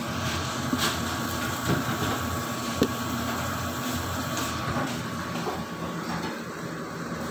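A kitchen fan running steadily, a smooth whir with a faint steady hum tone. A couple of light knocks sound over it, about a second in and near the middle.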